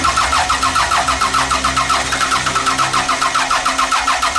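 Starter motor cranking a freshly rebuilt Toyota 5S-FE 2.2 four-cylinder in an even, rapid rhythm without the engine catching. The EFI fuel pump circuit is disconnected, so the engine turns over but does not fire.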